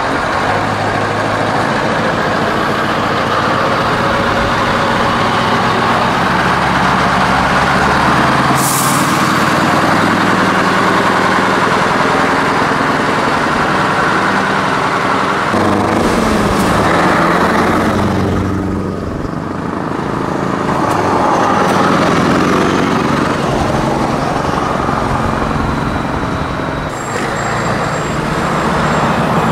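Scania V8 truck engines with open exhaust pipes running loud, the engine note rising and falling as they rev. A short hiss of air sounds about a third of the way in.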